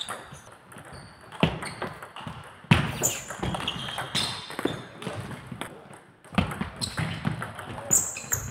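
Table tennis rally: the ball clicking off the rackets and the table in quick alternation, with more ball clicks from neighbouring tables and faint voices echoing around a large sports hall. The loudest hit comes a little under three seconds in.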